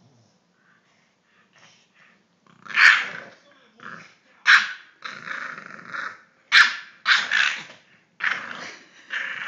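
English bulldog puppy growling and barking in play while being teased by a hand, in a string of loud bursts that begins about two and a half seconds in.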